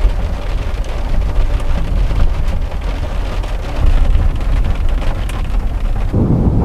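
Heavy rain drumming on a camper van's roof and windscreen, heard from inside the cab, over a steady deep rumble. About six seconds in, the sound shifts to a deeper, fuller rumble.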